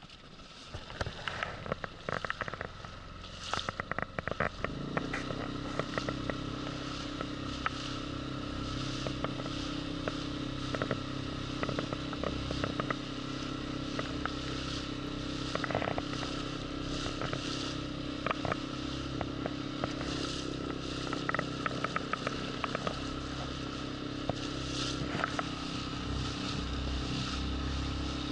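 A small boat motor starts up about five seconds in and runs at a steady, unchanging hum, with scattered crackles and scrapes of handling on the boat throughout.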